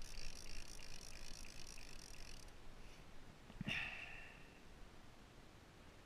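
Fishing reel's ratchet buzzing with fast, even clicks for about two and a half seconds while a hooked blue shark is played on the rod, then stopping. A single sharp knock comes about three and a half seconds in.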